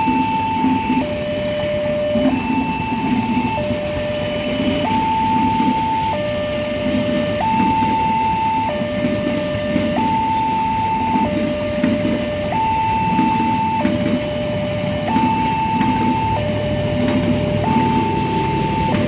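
Railway level-crossing warning alarm from the loudspeaker on the crossing post, switching back and forth between a high and a low tone about every second and a quarter. Under it are the rumble and clatter of passenger coaches rolling past, with the last coach going by near the end.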